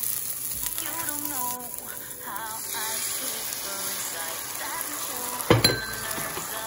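Sausage slices and beaten egg frying in a pan, a steady sizzle under background music, with one sharp knock about five and a half seconds in.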